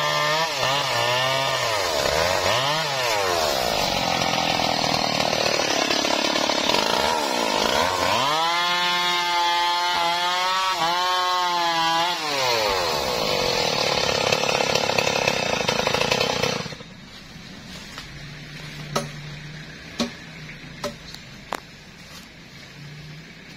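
Stihl MS 381 two-stroke chainsaw cutting through a teak log, its engine speed sagging and recovering again and again as the chain bites into the wood. About 16 seconds in the sound drops abruptly to a faint low hum with a few sharp clicks.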